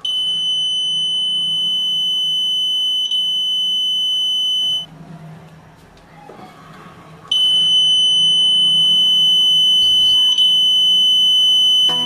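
Arduino door alarm's piezo buzzer sounding one steady high-pitched tone for about five seconds, falling silent, then sounding again for the last five seconds, each time set off by the door being opened or closed.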